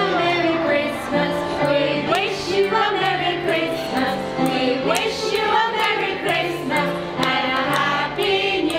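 Several women singing a Christmas song together, one lead voice amplified through a microphone, over steady instrumental accompaniment, with hand-clapping in time.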